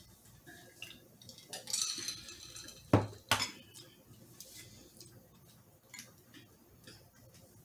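A drinking glass set down on a serving tray: a sharp knock about three seconds in, a lighter clink just after, then faint scattered clinks of dishes.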